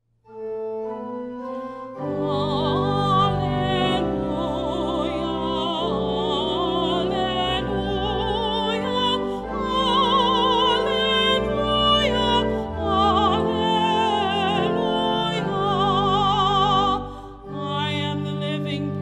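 A woman singing solo in a classical style with wide vibrato, accompanied by church pipe organ. The organ begins alone, holding chords, and the voice comes in about two seconds in.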